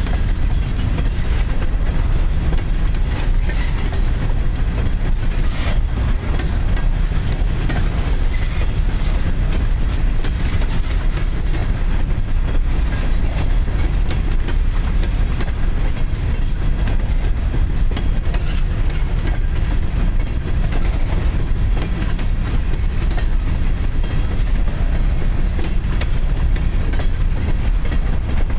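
Covered hopper cars of a freight train rolling past close by: a steady rumble of steel wheels on rail, with frequent clicks as the wheels cross rail joints.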